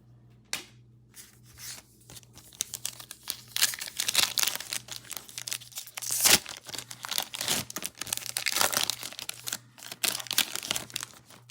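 Foil trading-card pack being torn open and its wrapper crinkled, a dense run of crackling tears that starts a few seconds in, with the loudest rip about halfway through.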